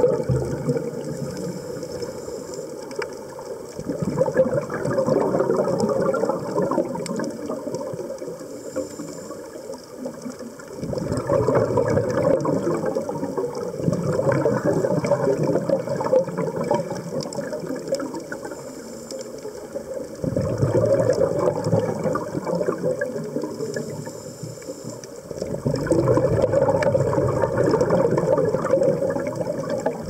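Scuba diver's exhaled bubbles from the regulator, heard underwater as a bubbling rumble that surges with each breath out, every five to nine seconds, with quieter gaps between breaths.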